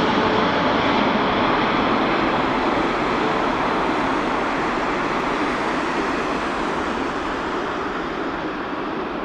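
Boeing 747-8 freighter's four GEnx jet engines, a broad steady roar just after the jet has passed low overhead on final approach, fading slowly and losing its hiss as the aircraft moves away toward touchdown.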